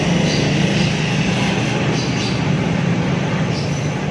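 Steady droning hum with hiss from argon (TIG) welding of a stainless steel muffler to the exhaust pipe.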